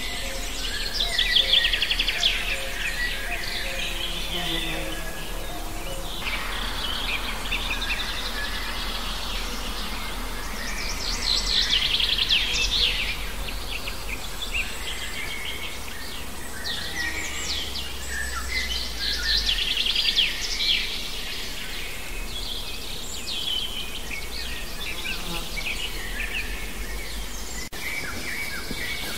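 Songbirds singing outdoors: quick trilled phrases of a couple of seconds recur every several seconds, loudest about a second in, near the middle and about two-thirds through, over a steady background hum of the open air.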